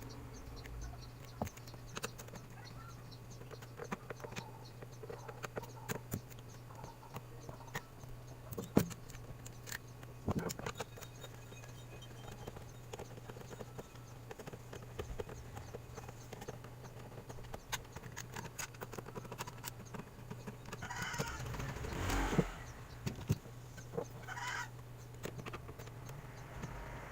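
Small clicks, taps and knocks of a Phillips screwdriver and plastic case parts being handled while an all-in-one PC is unscrewed and opened, over a steady low hum, with a few brief scraping bursts near the end.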